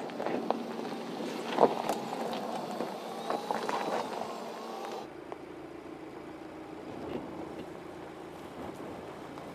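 Mercedes GLC SUV creeping over a stony dirt track, its tyres crunching and knocking over loose rocks with many sharp clicks above a steady running hum. The loudest knock comes about a second and a half in. At about five seconds the sound changes abruptly to a duller, steady hum of the vehicle moving further off.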